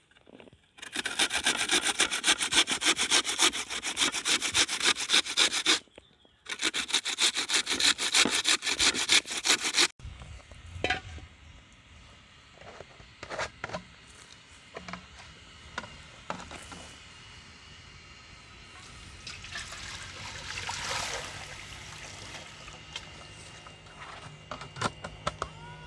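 Rapid rasping strokes of food being grated on a metal box grater, with a short pause about six seconds in and a stop at about ten seconds. After that it is much quieter, with a few scattered faint knocks.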